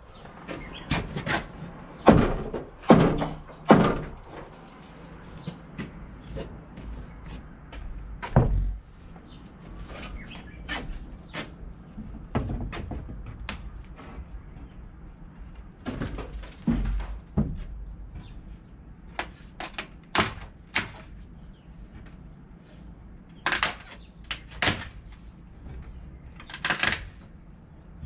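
Irregular knocks and thunks of wooden boards being struck and pried loose by hand during demolition of a timber wall, some hits much louder than others, with wood scraping between them.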